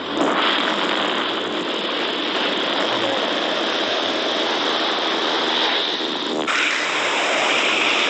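Loud rushing wind at the open door of a small aircraft in flight, buffeting the microphone with a rough, rattling quality. The sound changes abruptly about six and a half seconds in.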